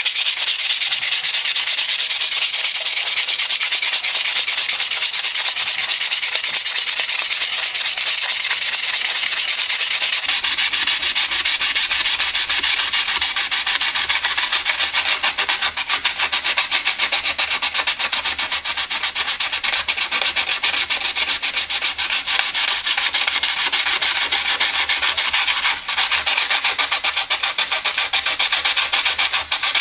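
150-grit sandpaper rubbed by hand over a wooden screwdriver handle in continuous rapid strokes, a steady scratchy rasp.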